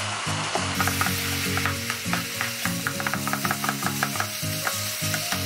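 Ground turkey and marinara sizzling in a nonstick frying pan, stirred with a slotted nylon spatula that scrapes the pan in quick repeated strokes.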